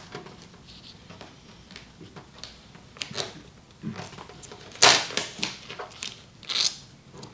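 Scattered short scrapes and rustles of a wet vinyl livery stripe being slid and repositioned on the car's body panel, the loudest about five seconds in.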